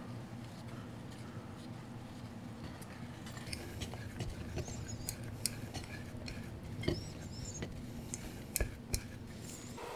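A stick stirring two-part silicone mold rubber in a container: faint scraping with scattered sharp clicks and taps against the container that start about three seconds in, over a steady low hum.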